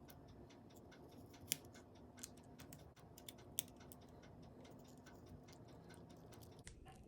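Faint scattered clicks and ticks from prying and handling an iPod nano during disassembly, with two sharper clicks about one and a half and three and a half seconds in.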